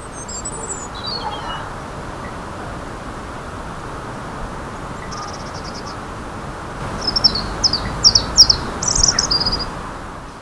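Small songbirds singing high, thin phrases, picked up through a 3D-printed parabolic electret microphone over a steady background hiss: a short twitter at the start, a quick trill about five seconds in, then a louder run of descending notes from about seven to nine and a half seconds.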